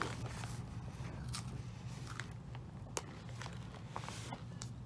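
A person eating a dry cracker: scattered small crisp crunches as it is bitten and chewed.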